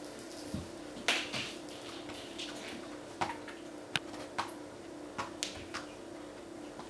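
Scattered scuffs, rustles and light clicks of Bengal kittens rolling and pawing on a hard floor, over a steady low hum.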